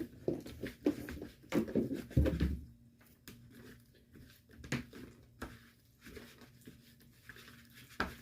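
Irregular light clicks and taps of a spoon stirring slime in a bowl, busy for the first couple of seconds and then sparse.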